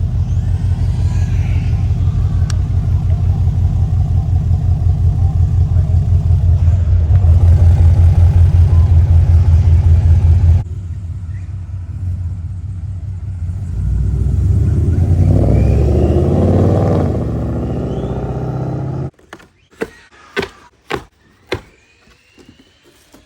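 Car engine running with a fast, even low exhaust pulse that grows louder, then after a cut is revved up briefly and drops back. Near the end come several sharp knocks or clicks.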